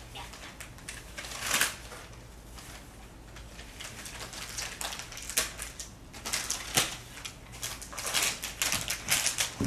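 Paper and plastic packaging being handled, rustling and crinkling on and off, with sharper crackles that come more often in the last few seconds.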